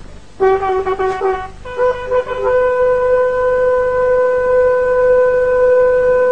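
Bugle call: a short lower note, then a long held note a fourth higher.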